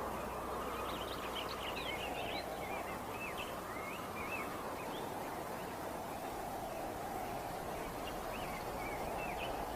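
Outdoor ambience: a steady rushing noise with small birds twittering in short scattered chirps, a cluster in the first half and another near the end.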